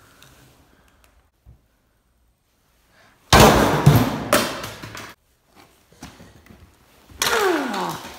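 Two loud bursts of thumping and clattering, a plastic water bottle being slammed and thrown onto the floor while the phone is jostled. The first comes about three seconds in and lasts nearly two seconds. The second comes near the end and carries a falling tone.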